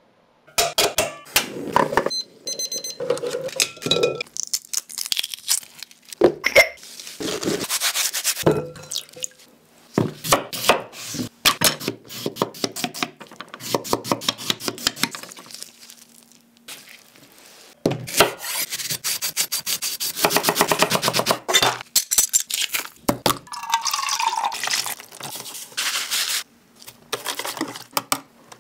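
Close-miked kitchen prep: a run of sharp taps and clicks, then a kitchen knife cutting a cucumber on a wooden board, with a fast, even run of chopping strokes in the middle. Near the end a wire whisk stirs a wet mixture in a plastic tub.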